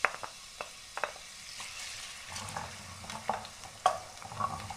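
Chopped onion sizzling in hot vegetable oil in a stainless steel frying pan. Over the sizzle come a dozen or so sharp taps and scrapes of a wooden spoon on the bowl and pan as the onion is tipped in and stirred.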